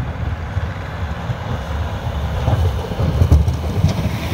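Snowplow truck's diesel engine rumbling as the truck drives past close by, growing louder about three seconds in as it passes.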